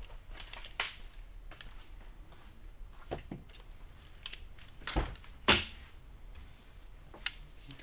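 Scattered light clicks and taps as a tape measure and a thin metal light-bar mounting strap are handled against a car's roof edge, with two louder knocks about five seconds in, over a low steady hum.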